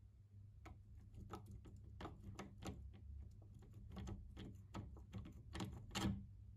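Quiet, irregular metal clicks and taps of pliers working a rusty bolt loose from an old cast-iron pipe vice, with the loudest clack near the end.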